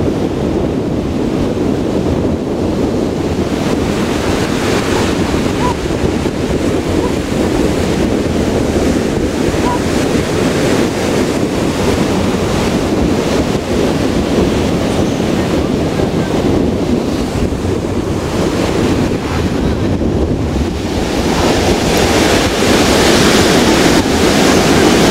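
Ocean surf breaking and washing ashore, with wind buffeting the microphone; it grows louder near the end.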